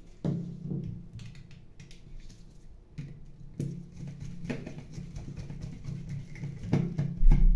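Small clicks, taps and scrapes of a screwdriver and hard plastic as the end cap of a laser toner cartridge is screwed on by hand, over a steady low hum. A heavier bump comes near the end.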